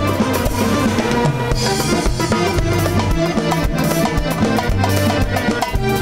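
Live band playing an instrumental passage: a steady drum-kit beat under bass and electric guitars.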